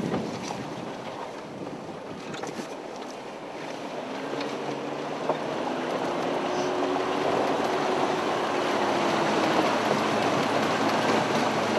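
Off-road vehicle fording a shallow river, heard from inside the cabin: a steady wash of water splashing around the wheels over a low engine hum, growing louder about four seconds in. A single sharp knock comes about five seconds in.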